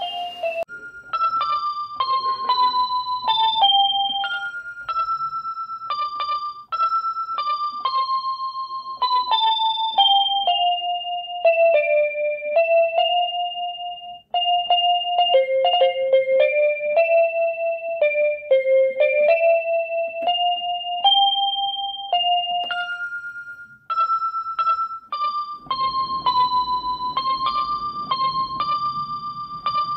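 Background music: a simple, gentle piano or electric piano melody played one note at a time.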